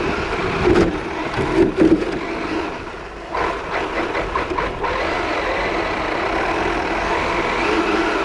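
Kyosho DRX VE radio-controlled rally car, an electric brushless model, driving and drifting on ice. Its motor and drivetrain run steadily and its tyres scrabble on the ice. There are a few sharp knocks in the first two seconds, and about three seconds in the noise drops briefly before a quick run of ticks.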